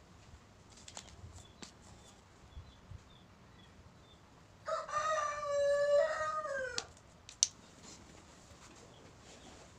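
A rooster crows once, a call of about two seconds that drops in pitch at the end, over faint ticking and scratching of marker pens on paper. A single sharp click follows shortly after the crow.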